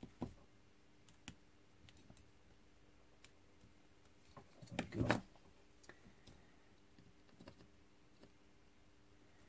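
Faint clicks and taps of a small circuit board and its components being handled and turned over during soldering, with a louder cluster of knocks about five seconds in.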